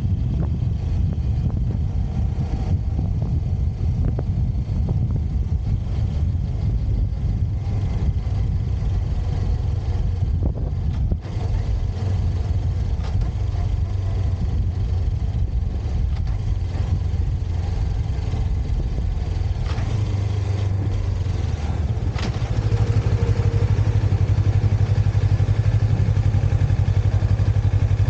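Motorcycle engine running steadily on the move. About 22 seconds in the engine note grows louder and steadier.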